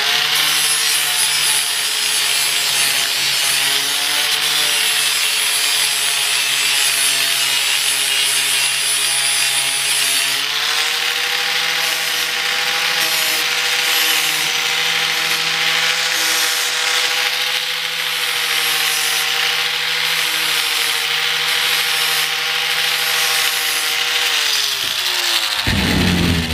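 Cheap Harbor Freight electric angle grinder with a sanding disc grinding down the front lip of an ABS plastic dash cap: a steady motor whine over a rough sanding hiss. The motor pitch steps up a little about ten seconds in, and it spins down near the end.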